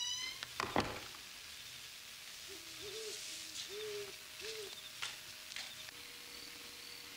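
An owl hooting softly, four short hoots in a row, after a sharp click just under a second in.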